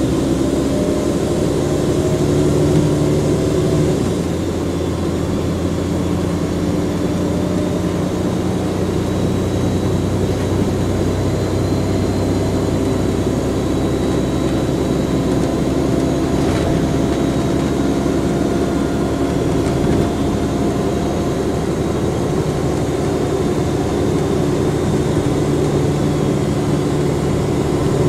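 Volvo Olympian double-decker bus's diesel engine running under way, with a thin, steady high turbocharger whistle held above the low engine note. The engine note shifts about four seconds in.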